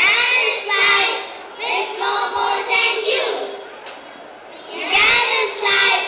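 Many children's voices reciting a poem together in unison, in three spoken phrases with a short pause before the last.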